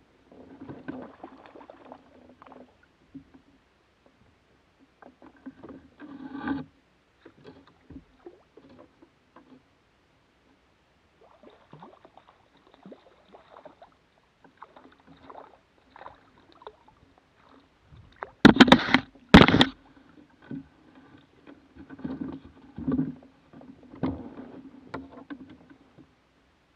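Scattered knocks and rattles of gear and paddle handling against a plastic fishing kayak's hull, with two loud knocks about a second apart around two-thirds of the way through.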